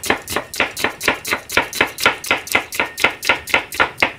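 Chef's knife cutting through an onion onto a plastic cutting board: a steady rhythm of sharp chopping knocks, about four a second.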